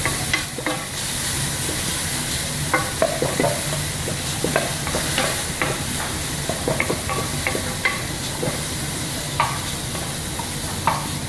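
Chopped garlic sizzling in hot oil in a pan, with scattered short clicks and scrapes of a utensil against the pan as it is stirred.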